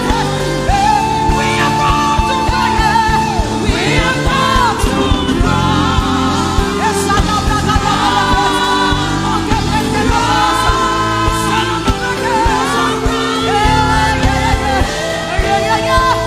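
Live gospel worship music: a singing voice holding long notes and sliding between them over steady sustained chords from the accompaniment.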